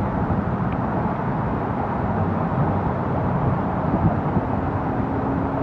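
Steady low outdoor rumble, with a steady engine hum joining about four and a half seconds in.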